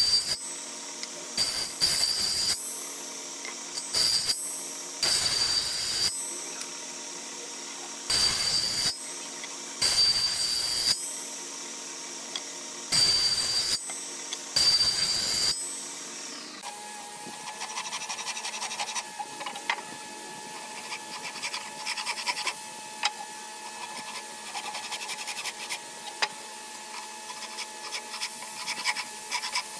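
A woodworking machine's spinning circular blade running, with about seven short, loud rasping cuts into hardwood as the piece is pushed in, a second or two apart. Past halfway the sound changes to a steady, higher hum with light ticking.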